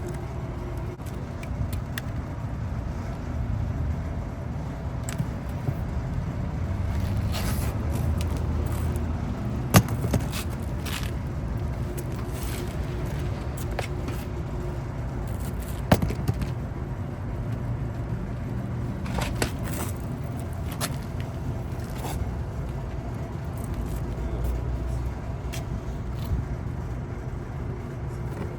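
Small clicks and scrapes of hand work on an air-conditioning unit's wiring, with two sharper clicks about 10 and 16 seconds in, over a steady low rumble.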